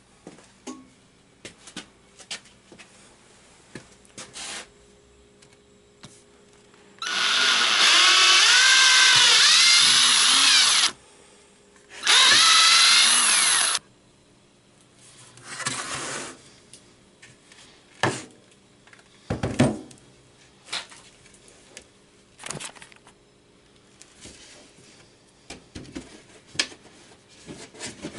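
Cordless drill run into plywood in two spells, one of about four seconds and a shorter one of about two, its pitch sagging under load and recovering. Scattered knocks and clicks of handling follow.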